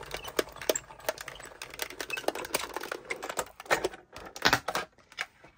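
Gemini Mini electric die-cutting machine feeding a die-and-card plate sandwich through its rollers, with rapid fine clicking. A few louder clacks follow near the end as the plates come out.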